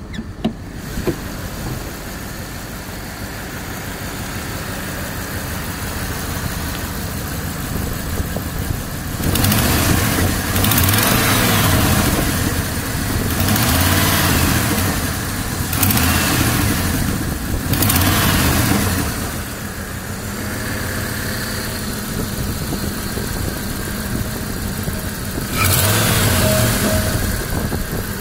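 Jeep Grand Cherokee ZJ's 5.2-litre V8 idling, then revved in about six short blips, with pitch rising and falling each time. A chattering noise comes in with the throttle and grows louder the harder it is revved, which the owner takes for the hydraulic lifters.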